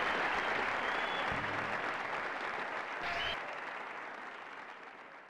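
Audience applauding. The applause fades out steadily over the last couple of seconds.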